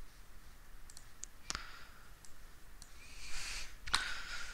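Computer mouse clicking, about half a dozen separate sharp clicks spread unevenly, with a soft breathy hiss over the last second and a half.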